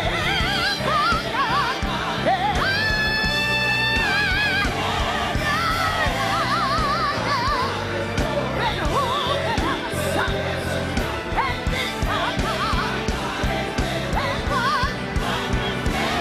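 Live gospel music: a full band accompaniment under high melodic runs with heavy vibrato, one high note held for over a second about three seconds in.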